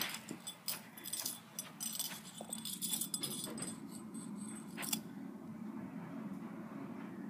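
Small metal tags and a chain jingling and clinking in quick irregular clicks for about five seconds, then stopping, over a steady low hum.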